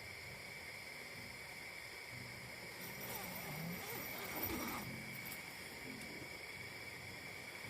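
Night-time outdoor ambience with a steady, high insect drone. About three seconds in, a louder noisy, scratchy sound lasts roughly two seconds.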